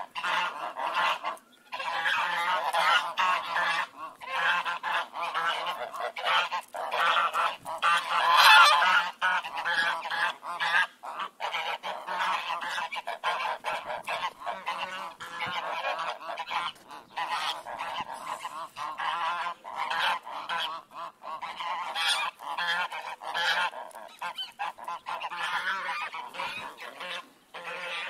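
Geese honking, call after call with only brief breaks, loudest about eight seconds in.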